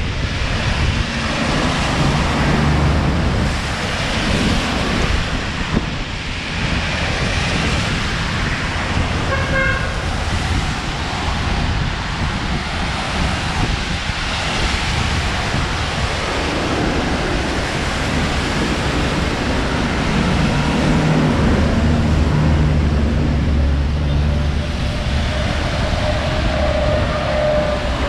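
Road traffic passing close by, with engine rumble and tyre noise swelling as vehicles go past. A car horn gives a short toot about ten seconds in, and a steady higher tone sounds near the end.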